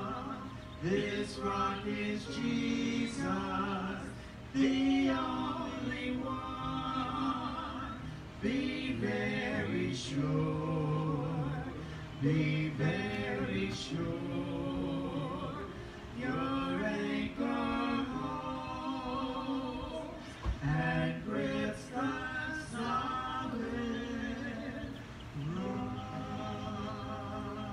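Group singing: several voices together singing a song in short phrases with brief breaks between them.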